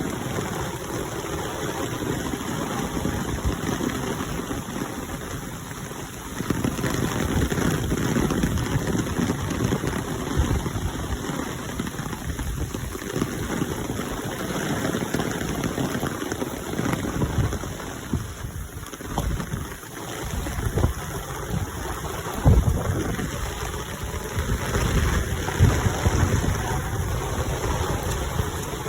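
Rain falling steadily in a dense hiss, with irregular low rumbling swells now and then.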